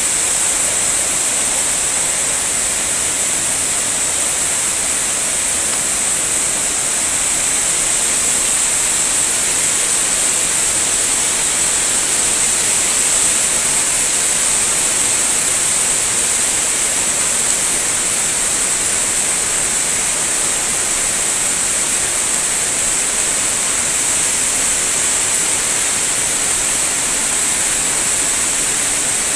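Floodwater rushing in a fast torrent: a steady, loud hiss of running water that never lets up.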